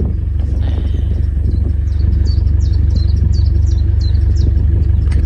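Narrowboat's diesel engine running steadily, a low even rumble. A small bird sings a run of quick high chirps over it from about a second and a half in, for about three seconds.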